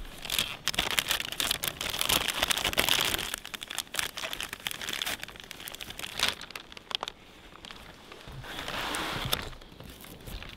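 Mylar emergency space blanket crinkling and rustling as it is handled and tied up with cord. The crinkling comes thick for the first six seconds or so, then eases, with a second swell of rustling shortly before the end.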